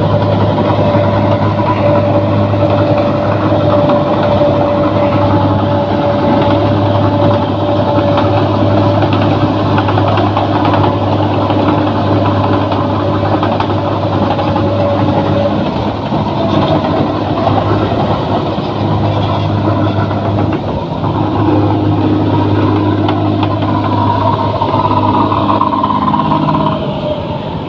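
Rice combine harvester running steadily: a loud engine drone with a whine from the machinery that drops away about halfway, and a higher whine near the end before the sound stops abruptly.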